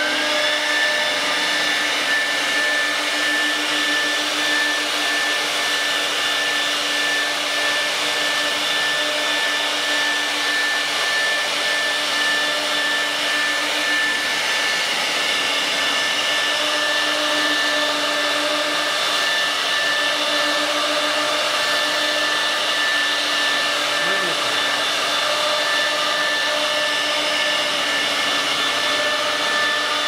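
Twin 4.5 kW HSD electric spindles of a CNC router running at speed while machining hinge recesses in wooden doors: a steady high whine that finishes rising to speed within the first second, over a steady lower hum and a constant hiss.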